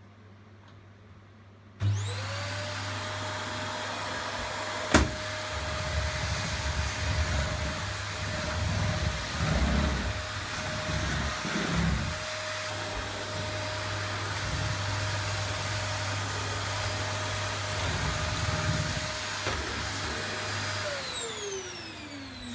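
Vax Air3 bagless upright vacuum cleaner switched on about two seconds in, its motor whine rising quickly to a steady pitch and running with a sharp click about five seconds in and some uneven low rumble for several seconds. Near the end it is switched off and the whine falls away as the motor winds down.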